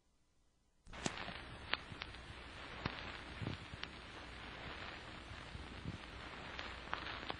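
Hiss and crackle of an old 1943 recording starting about a second in: a steady background hiss with scattered sharp clicks and pops.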